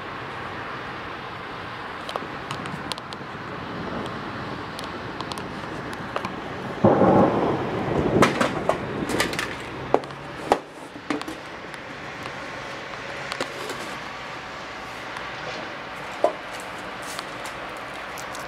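Steady outdoor background rumble of distant city traffic. A brief loud rush of noise comes about seven seconds in, followed by a handful of short, sharp knocks.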